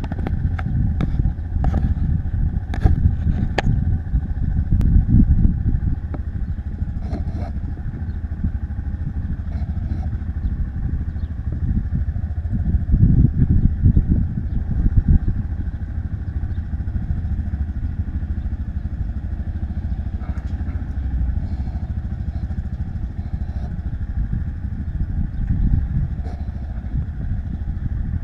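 Motorcycle riding along, its engine running under a heavy low rumble of wind on the camera's microphone, with a few sharp clicks in the first few seconds.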